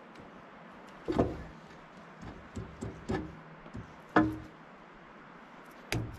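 About half a dozen irregular metal knocks and clanks from hand work on a John Deere 650J dozer's hydraulic lift cylinder during repacking. Some knocks carry a short metallic ring, and the loudest come just past a second in and about four seconds in.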